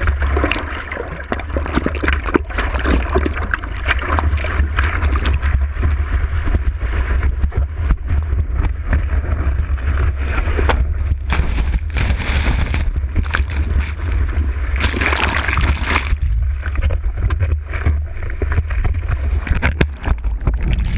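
Ocean surf sloshing and rushing close to the microphone over a steady low rumble, with louder rushes about eleven to thirteen and fifteen to sixteen seconds in.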